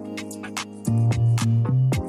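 Electronic background music with a steady beat and deep bass notes.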